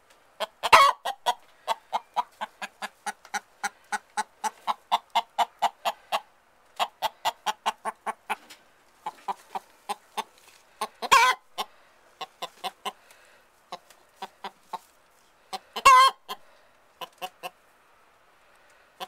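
Buff Orpington–Minorca cross hen on her nest clucking in a rapid run, about four clucks a second, with three louder squawks, about a second in, in the middle and later on. It is the angry, complaining clucking of a hen disturbed on the nest.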